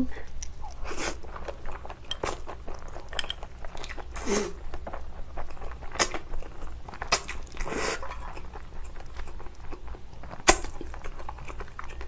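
Close-up eating sounds: crunchy chewing and bites, with a longer noisy slurp of noodles about seven seconds in and a sharp click about ten seconds in.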